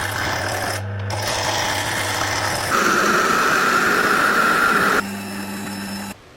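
Electric power tool running on rusty iron in three cut-together stretches: a steady motor run, then a louder stretch with a high steady whine, then a lower hum that cuts off sharply near the end.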